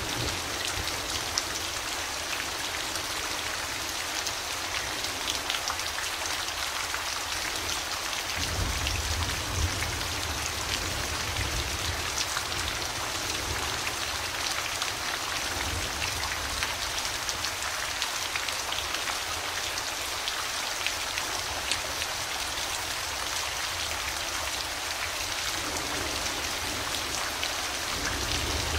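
Steady heavy rain falling on surfaces, with many sharp drop ticks. A low rumble of thunder swells about nine seconds in and again later.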